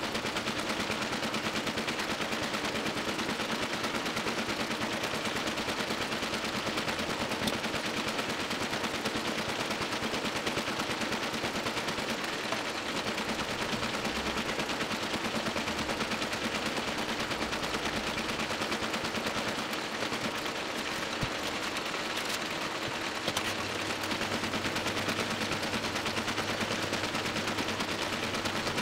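Toko 810 small sheet-fed offset printing press running at speed, a fast, even mechanical clatter as it feeds and prints paper sheets.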